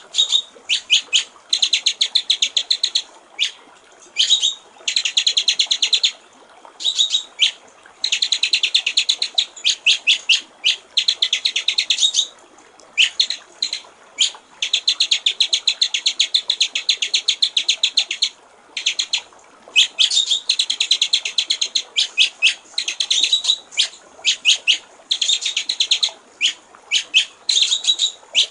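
White-rumped shama (murai batu) singing rapid runs of sharp, quickly repeated notes, in bursts of one to four seconds with short pauses between, over a faint steady trickle of water.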